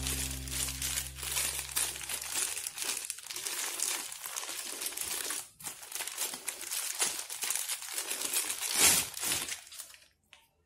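Clear plastic packaging crinkling and crackling as hands handle it and pull it off a wristwatch, stopping near the end.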